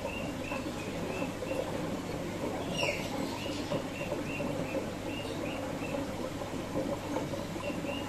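Birds chirping in a steady series of short repeated notes, with one quick falling whistle about three seconds in, over a continuous babble of flowing water.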